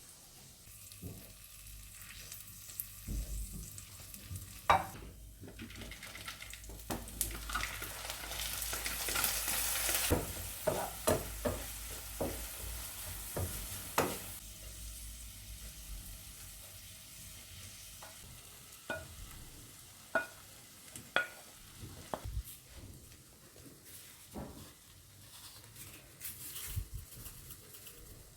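Food sizzling in a frying pan while a utensil stirs it, with scattered clicks and knocks of the utensil against the pan. The sizzle swells for a couple of seconds about eight seconds in, then eases.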